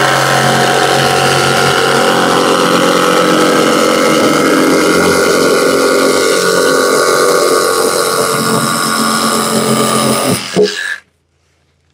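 Hilti jigsaw cutting through a 60 mm extruded polystyrene (Styrodur) insulation board, the motor and blade running steadily, then stopping about ten and a half seconds in as the cut is finished.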